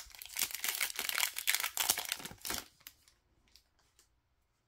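Wrapper of an Upper Deck MVP hockey card pack being torn open and crinkled, a dense crackling that lasts about two and a half seconds, then a few faint ticks as the cards are handled.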